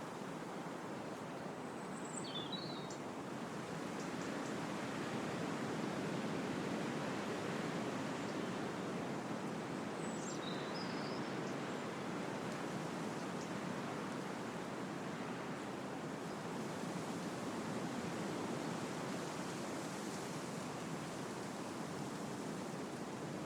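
Wind blowing through trees, a steady rushing of leaves and branches that swells a little a few seconds in. A bird gives short high chirps twice, about two seconds in and again about ten seconds in.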